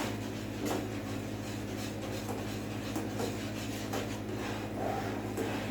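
A spoon or spatula scraping and knocking against a pan while stirring thickening tomato sauce, in irregular strokes over a steady low hum.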